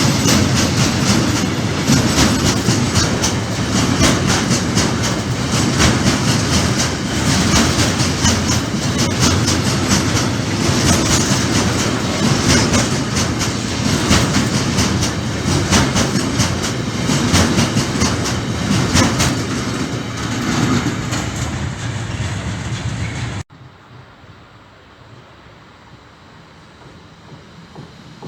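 A freight train passing close by, its wagon wheels clacking rhythmically over the rail joints. The sound cuts off suddenly about 23 seconds in, leaving a much quieter background hum.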